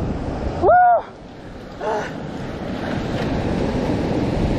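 Surf washing over a rocky shore, with wind buffeting the microphone. A short, loud cry of a voice about a second in.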